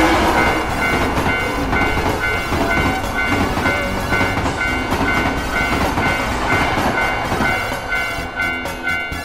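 Railroad crossing bell ringing in a steady repeating pattern over the loud rumble and clatter of a passing train, which thins out near the end.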